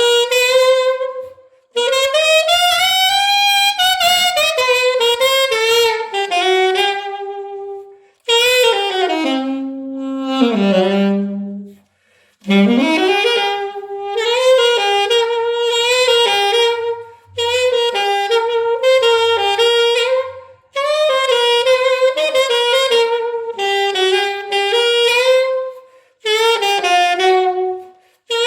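Solo alto saxophone playing swinging blues phrases in the A minor blues scale, several short phrases with brief gaps for breath, with bent and sliding notes and a low note held near the middle.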